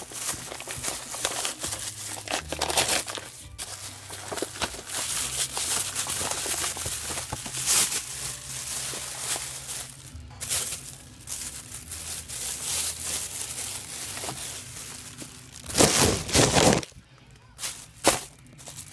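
Paper mailer and plastic bag crinkling and rustling as a package is pulled open and its contents unwrapped by hand. There is a louder burst of handling noise about sixteen seconds in and a sharp click near the end.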